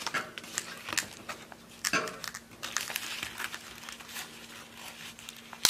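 Banana leaf crinkling and crackling as it is folded and pressed into a parcel, in many small irregular crackles.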